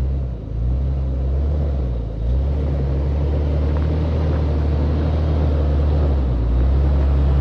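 An off-road SUV's engine running at low speed as it crawls up a dirt trail toward the microphone, with a steady low hum. It eases off briefly twice in the first couple of seconds, then grows louder as the vehicle draws near.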